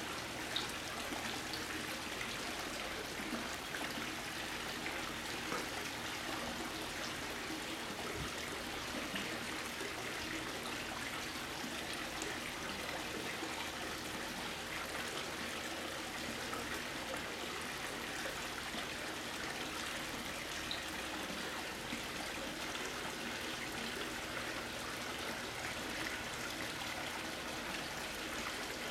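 Steady trickling and lapping of pool water as two Shetland Sheepdogs paddle through it, with a few faint small splashes.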